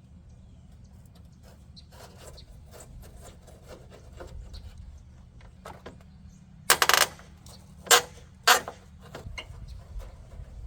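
Hand tools and metal hardware being handled: small clicks and scrapes, then a loud rattling clatter about seven seconds in, followed by two sharp knocks.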